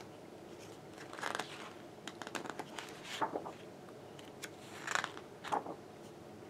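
Pages of a large photo book being turned by hand, a handful of short papery rustles and swishes.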